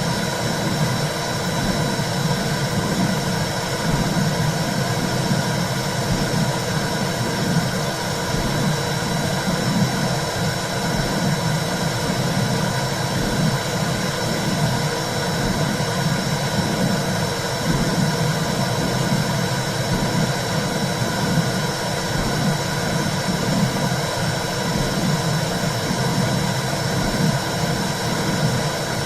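Recorded womb sound: a steady low whooshing rumble that wavers slowly without a clear beat, with a thin, faint, steady high tone over it.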